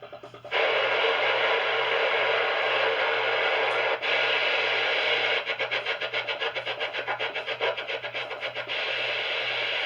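Radio receiver static: a steady hiss with a low hum under it. A short dropout comes about four seconds in, and for a few seconds past the middle the noise flutters rapidly before settling back to a steady hiss.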